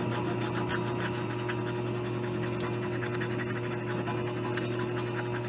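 Hand file rasping across a welded-up aluminum cooling fin on a Triumph Tiger Cub cylinder head, in quick repeated strokes, rounding off the fin's square edge.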